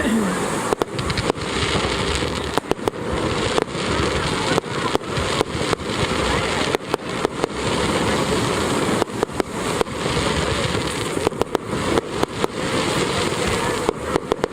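Fireworks display: a dense, irregular run of sharp bangs from bursting shells, many coming in quick clusters, over a constant noisy rumble.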